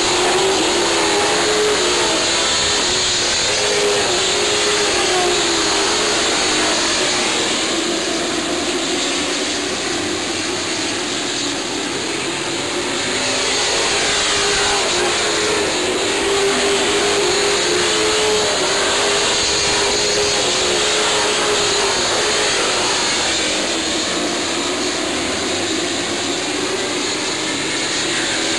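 A pack of Sportsman stock cars racing around a short oval track. Their engines run at high revs as one continuous loud drone, with the pitch rising and falling as cars accelerate off the turns and lift into them.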